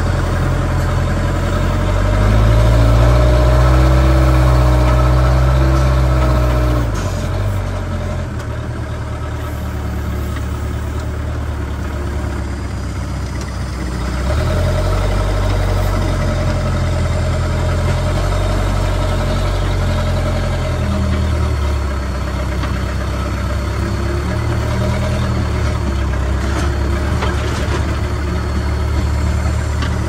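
JCB backhoe loader's diesel engine running, with the engine note swelling louder under load twice for several seconds each, between steadier running.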